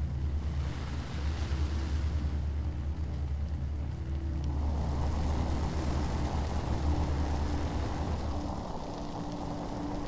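A low, steady rumbling drone with a faint held tone above it, joined about halfway through by a rising hiss-like wash. The deep rumble drops away near the end.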